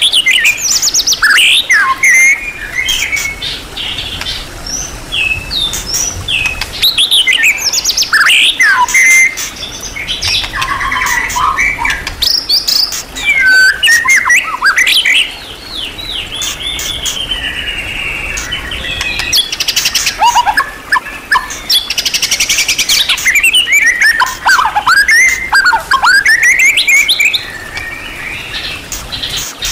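White-rumped shama (murai batu) singing a long, varied song of quick whistles, up- and down-slurred notes and trills, packed with mimicked phrases. About two-thirds of the way through comes a fast rattling phrase.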